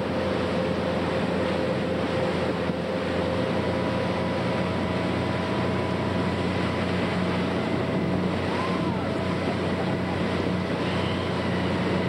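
Motorboat engine running steadily at towing speed, with the rush of the wake and wind over the boat.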